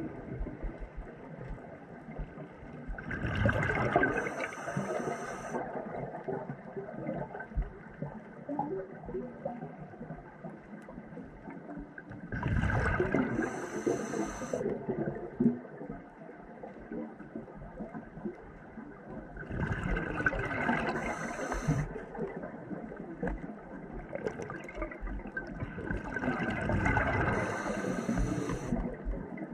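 Scuba diver breathing through a regulator underwater: four breaths about seven to eight seconds apart, each a gurgling rush of exhaled bubbles. There is faint crackling between the breaths.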